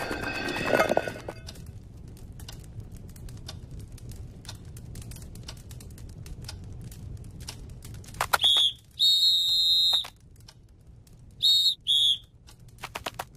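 High whistled tones in a cartoon soundtrack: a short whistle, then one held for about a second, then two short ones close together. Faint scattered ticks come before them.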